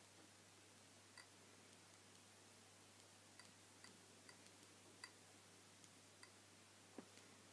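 Faint, short taps and clicks of a PIN being keyed in on a smartphone touchscreen: about ten irregularly spaced ticks, with a slightly heavier knock near the end, against near silence.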